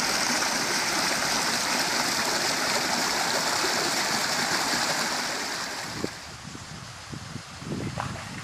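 Mountain stream rushing over rocks in a small cascade, a steady hiss of water. About six seconds in it gives way to quieter water with a few short splashes from a dog wading in the shallows.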